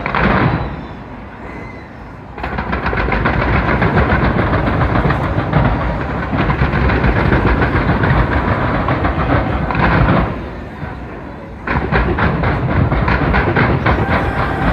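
Fireworks bursting in a dense, rapid run of bangs and crackles. The volley eases off briefly about a second in and again about ten seconds in, then picks up again.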